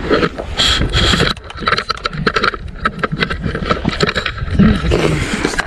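Rustling and handling noise on the camera's microphone, a dense run of irregular scrapes and knocks as gear is handled, over a steady low rumble of wind on the microphone.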